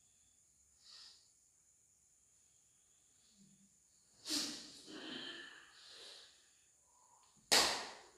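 A person's forceful breathing: a faint breath, then a long hissing, snorting rush of breath a little past halfway, and a short, loud blast of breath near the end.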